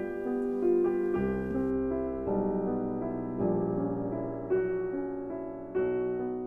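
Slow, soft piano music, with sustained notes and a new chord struck about every second.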